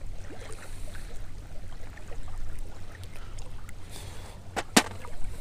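Small waves lapping at a sandy shore, with a low wind rumble on the microphone. Two short sharp clicks a fraction of a second apart near the end.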